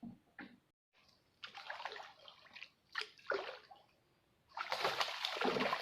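Water splashing and sloshing in several short bursts, the loudest and longest one starting near the end.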